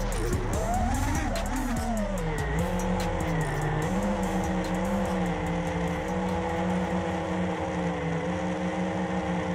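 Armattan Chameleon Ti 5-inch FPV quadcopter's motors whining. The pitch falls and wavers in the first two seconds as the quad tumbles to the ground, then holds steady at a low idle while it sits armed on the dirt.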